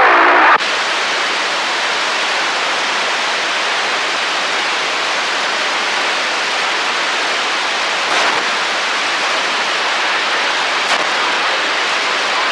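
CB radio receiver hiss: a transmission cuts off about half a second in and the radio drops to a steady, even band static, with a couple of faint crackles later on.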